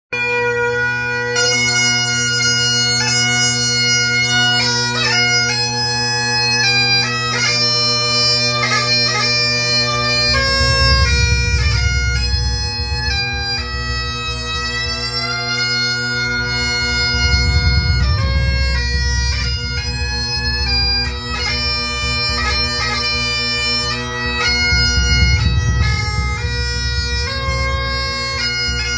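Pipe band playing a tune: several Great Highland bagpipes, their steady drones sounding from the start and the chanters coming in about a second in, accompanied by snare drums and a bass drum that comes through strongest in three swells.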